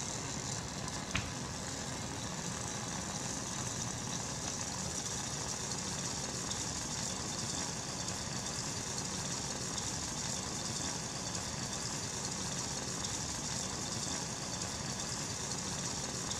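Steady rushing hiss of a Bunsen burner flame heating an aluminium-can Hero's engine, joined a few seconds in by a stronger high hiss as steam jets from the can's holes and spins it. One small tick about a second in.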